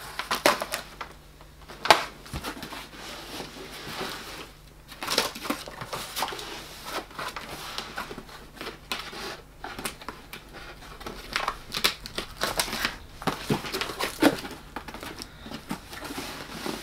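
Utility knife slicing packing tape on a cardboard shipping box, with the cardboard flaps scraping and crinkling as they are pulled open. The scrapes and clicks come irregularly, with one sharp crack about two seconds in.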